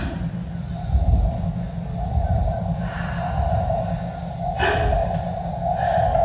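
Sharp, breathy gasps from a performer, twice near the end, over a steady droning tone and a low rumble.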